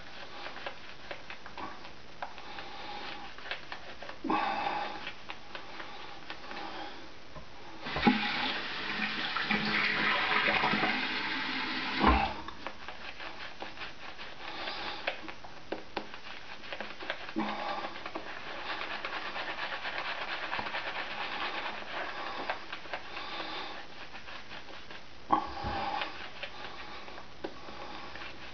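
Boar-bristle shaving brush working lather on a face, a wet swishing and crackling in repeated strokes. About eight seconds in, water runs for about four seconds, with a knock as it starts and as it stops.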